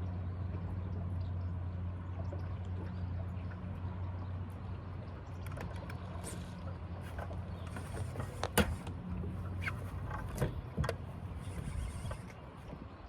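Steady low hum of a bass boat's electric trolling motor running, fading out near the end. Several sharp clicks and knocks come over it in the second half, the loudest about two-thirds of the way in.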